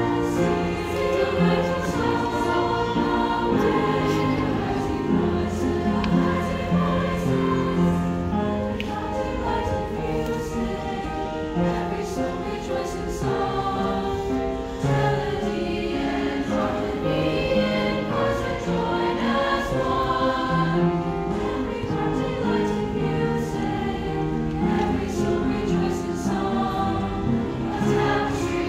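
A large combined school choir singing, many voices holding notes together in parts.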